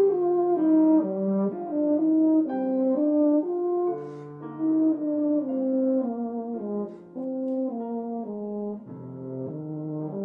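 Euphonium playing a flowing melody, a new note about every half second, with no pauses.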